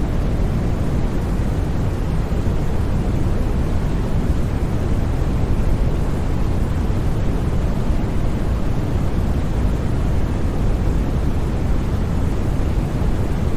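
Steady white noise for sleep: an even, unchanging rushing hiss, heaviest in the low end, with no breaks or sudden sounds.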